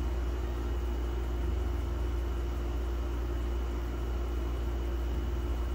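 Window air conditioner running on low fan with its compressor on: a steady low hum, with a faint high steady tone over it.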